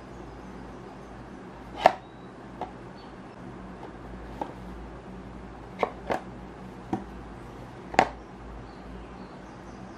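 Small cardboard product box handled and turned in the hand: about seven sharp taps and clicks, the loudest about two seconds in and near the end.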